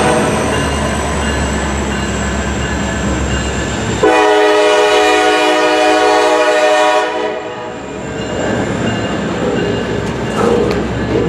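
Diesel freight locomotive's air horn sounding one blast of about three seconds, starting about four seconds in, over the steady low rumble of the passing train. After the horn the rumble eases a little and the train keeps rolling by.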